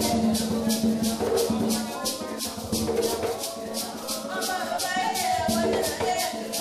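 Choir singing with a hand shaker keeping an even beat of about four strokes a second.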